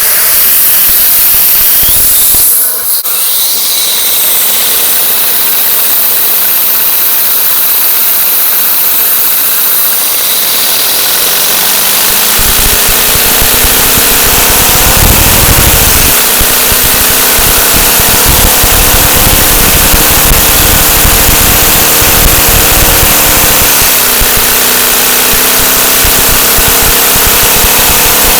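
LEGO two-cylinder boxer vacuum engine running on vacuum-cleaner suction: a loud, steady rushing hiss, with the engine's own pitched running note coming in about halfway through, climbing and then holding steady at speed, dipping briefly twice.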